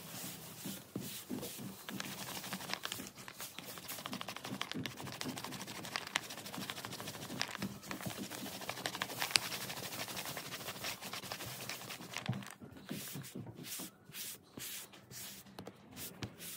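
Paper crackling and scraping with many small clicks as a printed sheet is handled, thinning to a few separate scrapes near the end.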